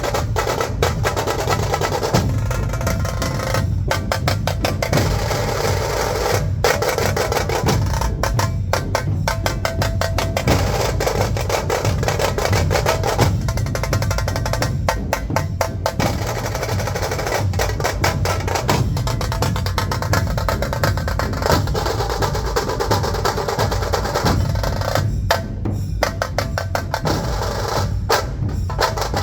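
A dhol-tasha ensemble drumming together: the deep beat of the dhol barrel drums under the fast, sharp rolls of the tasha drums. The tasha strokes stop briefly a few times before the rolls resume.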